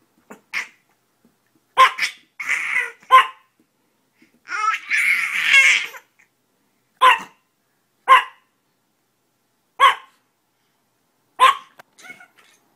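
Small dog, a chihuahua, yapping in short single barks, about eight spread across the stretch. Between them a baby squeals and laughs, with a longer run of laughter just before the middle.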